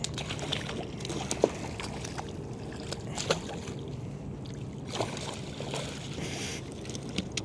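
A few light knocks and taps on a kayak, with faint water sloshing, as a landed ladyfish is handled aboard and let go.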